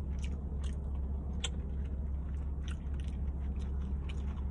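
Close-up chewing and lip-smacking of a person eating barbecue ribs: irregular short wet clicks a few times a second. A steady low hum runs underneath.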